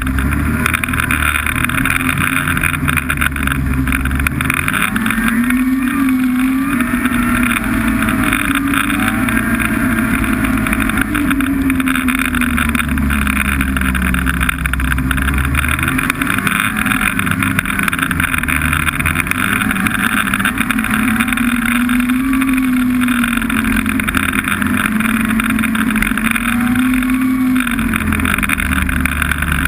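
Snowmobile engine running while riding, its pitch rising and falling several times as the throttle is opened and eased off, over a steady rushing noise.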